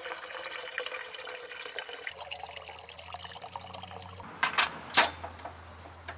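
Water running and splashing for about four seconds, then a few sharp knocks.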